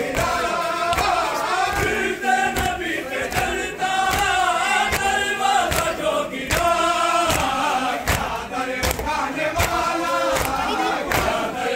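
Men's voices chanting a noha (Shia mourning lament) together, over the steady rhythmic slapping of hands on chests (matam).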